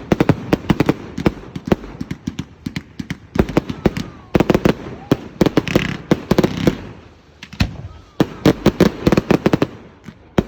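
Fireworks display: rapid volleys of sharp bangs and crackles, coming in several clusters a second or more long with short lulls between.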